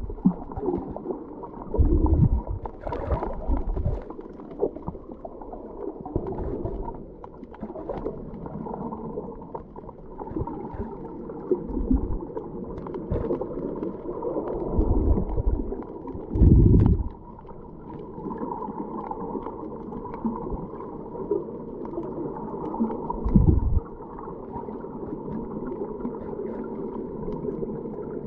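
Underwater sound picked up by a submerged camera while snorkelling: a steady, muffled watery rush with gurgling. Several short low thumps are spread through it.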